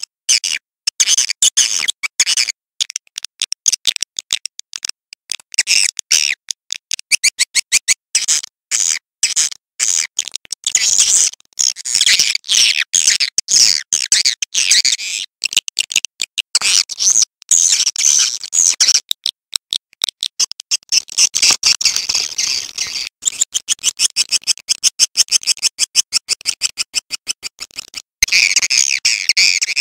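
Swiftlet calls: rapid, chattering trains of high-pitched clicks and chirps that come in runs of a second or more, separated by short breaks.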